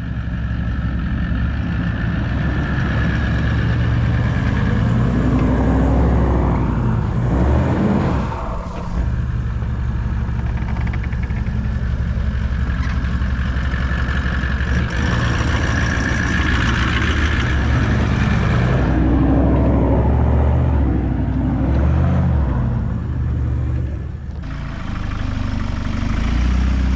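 Four-wheel drive's engine labouring up a steep, rough off-road track, revving up and down under load, with brief dips in revs about eight seconds in and again near the end.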